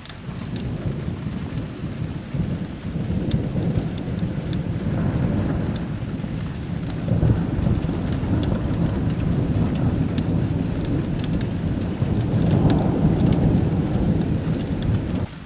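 Thunder rumbling in long rolls that swell and fade, loudest about seven and thirteen seconds in, over rain with scattered drops ticking. It begins abruptly and drops off sharply just before the end.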